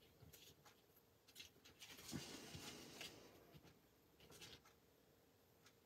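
Near silence, with faint rustling and soft clicks of paper cardstock being handled and slid into place for about a second, starting about two seconds in.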